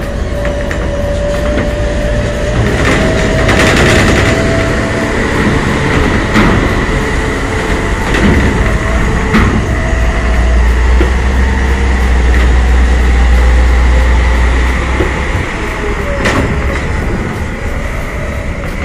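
Diesel bus and truck engines running as the vehicles drive across a ferry's steel loading ramp and grated deck, with sharp metal clanks as the wheels cross the plates. A deep engine rumble is strongest in the middle, under a steady high whine.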